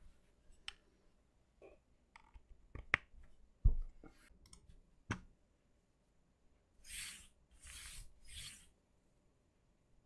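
A Qwerty Keys QK65 mechanical keyboard being handled and set in place on a desk mat: scattered light clicks and one heavier thump a few seconds in. Three short hissing noises follow about three seconds later.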